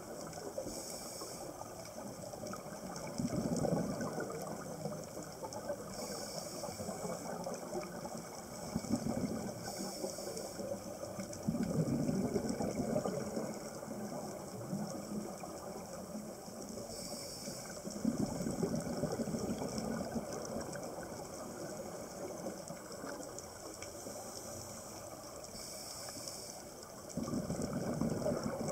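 Scuba diver breathing through a regulator, heard underwater. A short hiss on each inhale is followed by a louder rumble of exhaled bubbles, about every five seconds.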